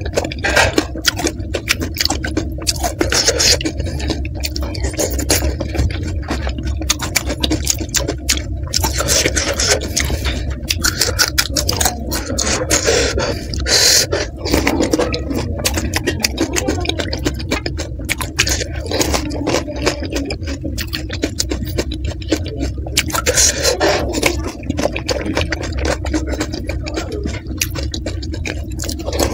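Close-miked eating of panipuri topped with green chillies: a steady run of crunching and chewing of the crisp puri shells, with wet sounds as the puris are dipped in the spiced water and taken in.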